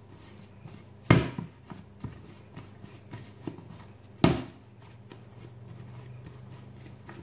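Risen yeast bread dough being pressed down and folded by hand on a floured worktop to push the air out after proofing, with two dull thumps, about a second in and about four seconds in, and a few lighter pats between.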